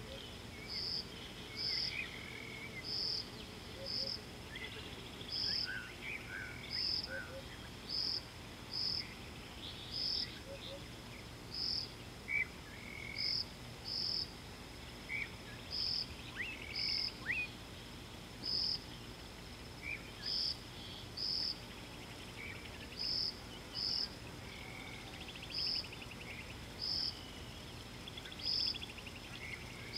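Outdoor wildlife ambience: a small animal, insect or frog, calls in short high chirps at one pitch, about one a second and sometimes in pairs, over scattered brief bird calls.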